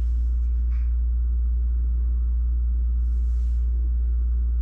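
A steady low hum with faint light handling noises over it.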